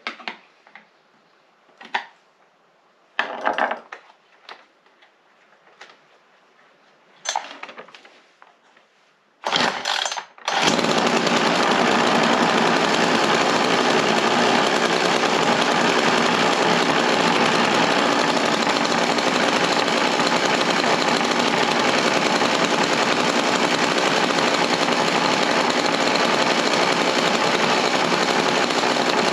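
A few scattered clicks and knocks from handling the Stanley petrol chainsaw, then its two-stroke engine starts about ten seconds in and runs steadily and loudly, with the air-filter cover off.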